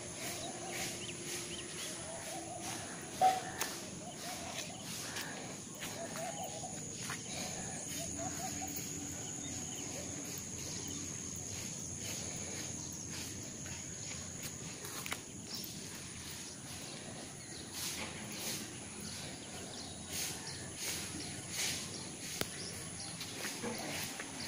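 Outdoor rural ambience: faint distant calls in the first third over a thin, steady high-pitched whine, with scattered light clicks and steps and one sharp click about three seconds in.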